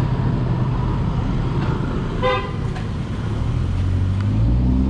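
Street traffic: a motor vehicle engine runs with a low steady rumble, a short horn toot sounds a little over two seconds in, and an engine grows louder near the end.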